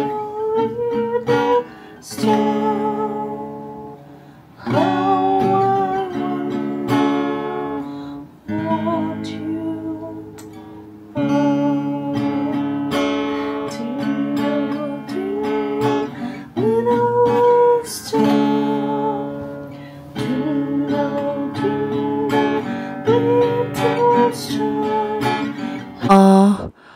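Epiphone acoustic guitar strummed in slow chords, each strum ringing on for a second or two, with a voice singing a melody along with it.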